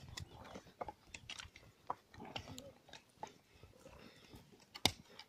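Hand hoes chopping and scraping into dry, hard soil, an irregular series of crunchy knocks, with faint voices of workers in the background.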